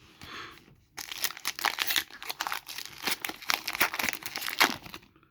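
Foil trading-card pack wrapper crinkling and crackling as it is handled and torn open, a dense run of crackles lasting about four seconds.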